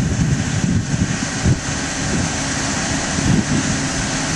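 Wind buffeting the microphone in irregular gusts, over a steady low rumble and hiss.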